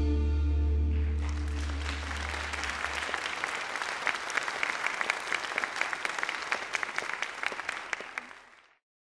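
A live band's last chord rings out and dies away while audience applause starts about a second in; the clapping fades out shortly before the end.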